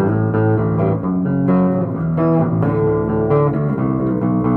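Rickenbacker-style four-string electric bass playing a continuous run of plucked notes that change every fraction of a second, some ringing together.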